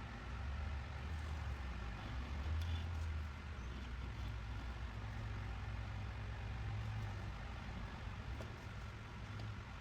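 Front wheel hub being turned slowly by hand against the tip of a pick for a runout check: a low rumble with a faint, steady scraping where the pick rides on the hub's edge.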